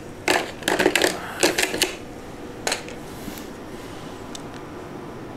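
Clattering and rustling of a cardboard box as hard plastic corner protectors are taken out of it: a quick flurry of clicks and knocks for about two seconds, then one more knock.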